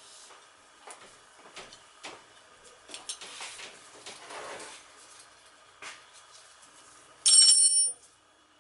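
Light clicks and knocks of tools and metal parts being handled at a furnace blower, then a loud, short high-pitched ring lasting under a second, about seven seconds in, that cuts off suddenly.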